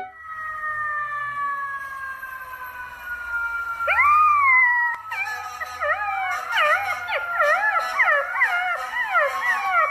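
Dog howling: a long drawn-out howl that slowly falls in pitch, then from about halfway a run of quick, wavering, overlapping howls.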